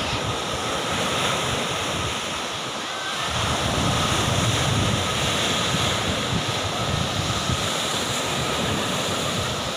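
Surf breaking and washing up a sandy beach, with wind rumbling on the microphone, louder for a couple of seconds in the middle.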